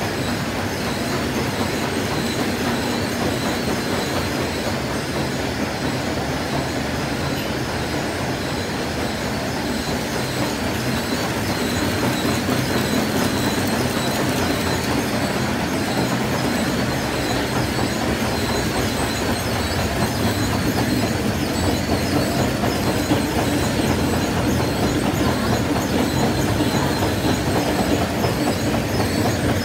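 Steady rattling and humming of a running snack-food production line: conveyor belts and a flow-wrap packaging machine, a little louder from about twelve seconds in.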